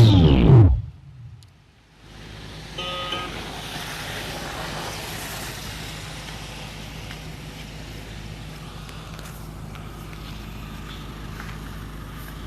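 Music through a PA sound system cuts off about a second in. After a short hush comes a steady background rumble and hiss with a low hum, and a brief tone about three seconds in.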